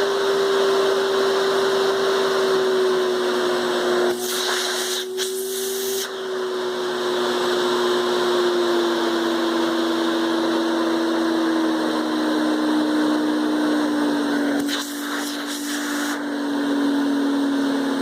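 Hoover Spectrum canister vacuum cleaner's 11.4-amp suction motor running as its speed control is turned down, the motor's steady whine falling in pitch in small steps. Twice, a brighter rush of hiss lasts about a second and a half.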